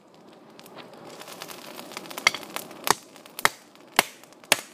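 Hammer striking red-hot rebar laid on a flint rock used as an improvised anvil: five sharp metallic blows about half a second apart in the second half.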